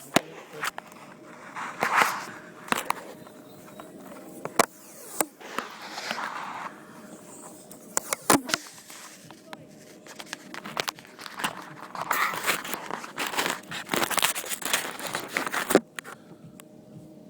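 Handling noise on a phone's microphone: scattered sharp clicks and knocks, with bursts of rustling and crackling a few times, as the phone is fitted to the RC car.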